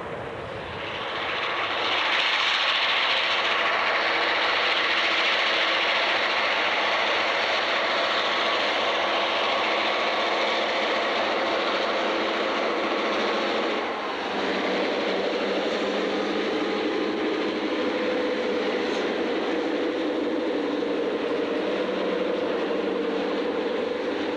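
Rio Grande EMD F9 diesel locomotives passing close with a loud rushing run. About fourteen seconds in, the sound changes abruptly to a lower, steadier rumble with several held tones as the passenger coaches roll by.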